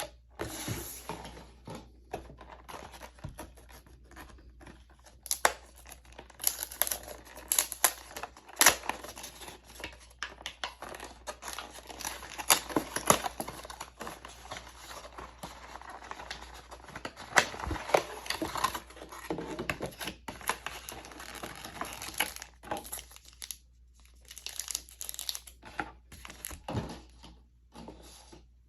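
Packaging of a Yu-Gi-Oh booster display box being torn and crinkled open by hand, with irregular crackles and sharp clicks and brief pauses near the end.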